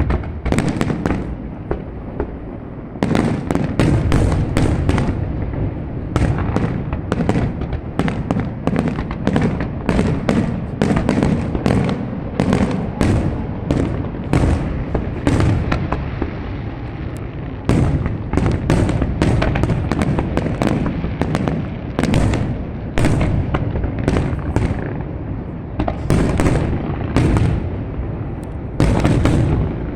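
Fireworks display: a dense, continuous run of booms and sharp cracks, easing off briefly a few times.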